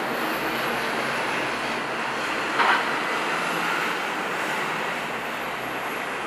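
Distant engine noise of an Airbus A320 jet rolling out on the runway after landing, heard as a steady rushing sound. A short, sharp burst of noise comes about two and a half seconds in.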